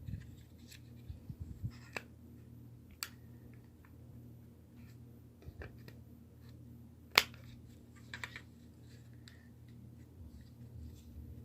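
Scattered small clicks and snaps of old, brittle plastic as a Mercedes W124/W201 seat adjustment switch housing is pried and worked apart, with one sharp snap about seven seconds in and a quick run of clicks just after.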